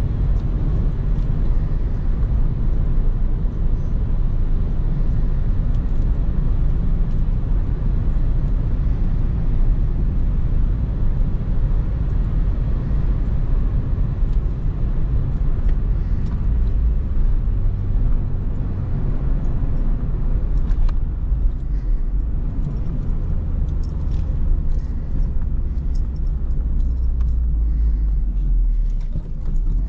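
Acura RSX being driven, heard from inside the cabin: a steady low engine and road rumble.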